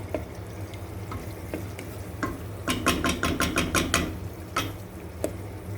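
A spoon stirring chopped tomatoes into chicken and onion in a cooking pot. Scattered light clicks give way, about three seconds in, to a quick run of about ten taps of the spoon against the pot.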